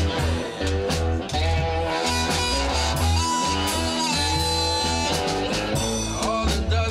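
Live electric blues band playing a slow blues. Amplified harmonica plays held notes over cigar box guitars, with bass and drums keeping a steady beat.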